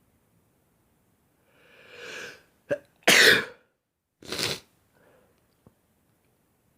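A man sneezing: a breath drawn in that swells over about a second, a short catch, then a loud sharp sneeze about three seconds in, followed a second later by a second, weaker burst of breath.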